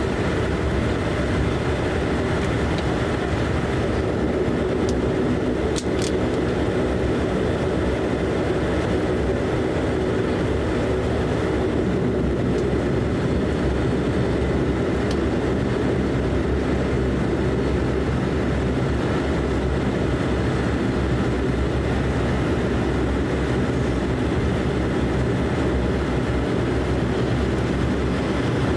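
Cabin noise of a De Havilland Canada Dash 8 Q400 taxiing: its Pratt & Whitney PW150A turboprop engines and propellers running steadily, heard from a window seat beside the propeller.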